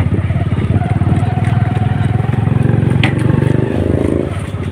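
Motorcycle engine running at low road speed close by, its sound dropping away about four seconds in. A brief high rising chirp about three seconds in.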